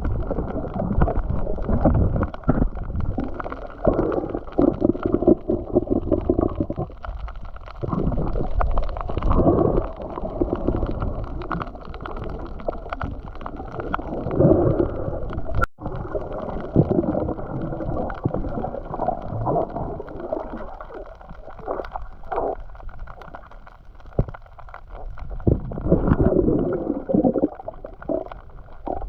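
Muffled, irregular water gurgling and sloshing around the camera during a spearfishing dive, swelling and fading unevenly.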